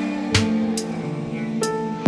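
Background music with sustained notes and a steady beat, a deep bass hit about a third of a second in.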